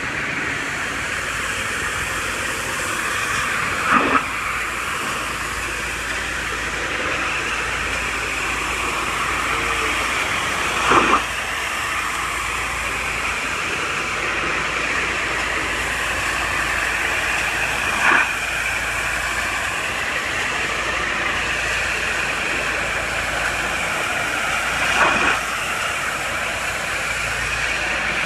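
High-pressure water spray from a pressure washer hissing steadily, with a brief louder surge about every seven seconds.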